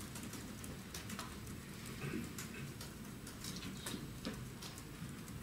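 Quiet room hum with scattered light clicks and taps at irregular intervals.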